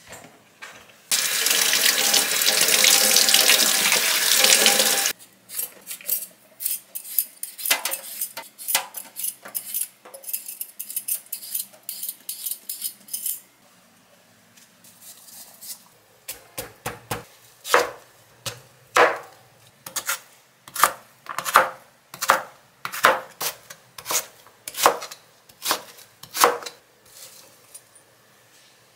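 Running water from a kitchen tap for about four seconds, then light clatter and rustling. From about halfway on, a kitchen knife cuts beetroot on a cutting board in a series of sharp strikes, about one to two a second.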